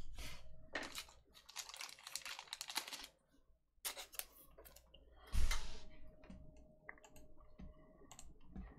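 Trading cards and pack wrappers being handled on a table: a quick run of small rustles and clicks, then a louder knock about five seconds in, followed by a few scattered soft clicks.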